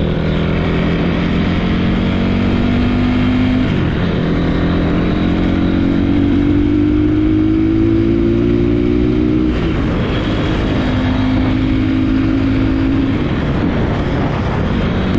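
Motorcycle engine running under way, its pitch climbing slowly for several seconds and then dropping sharply about ten seconds in, over a constant low rumble of wind and road noise.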